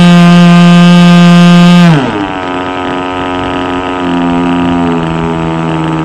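Nitro glow-fuel model aircraft engine on a Seagull Boomerang V2 trainer running at a steady high throttle, then throttled back about two seconds in, the pitch dropping quickly to a lower, quieter steady idle. This is a ground run-up while the low-speed needle valve is being tuned.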